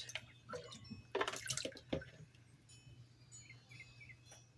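Water being poured from a cup into a glass dish, with a short splash about a second in, then faint dripping and trickling.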